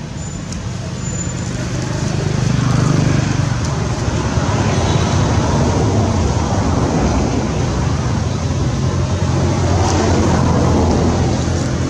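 Steady low rumble of a motor vehicle's engine running, swelling about two seconds in and holding.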